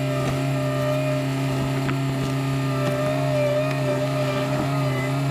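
Background music: a steady, sustained low drone.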